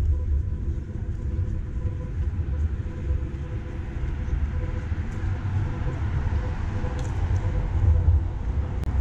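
City street traffic: a steady low rumble, with the noise of a passing vehicle swelling through the middle and easing near the end.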